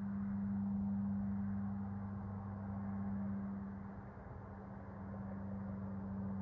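A steady low mechanical hum that holds one pitch throughout, over a faint even wash of background noise.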